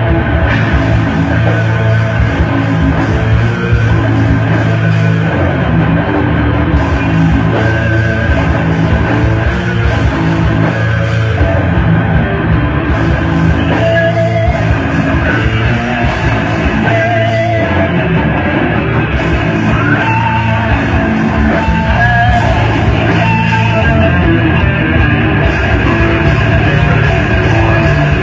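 Live rock band playing loudly, with electric guitar, bass and drums.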